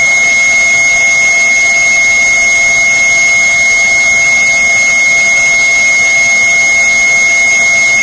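A steady, unbroken high-pitched electronic tone over loud hiss, cutting off suddenly at the end.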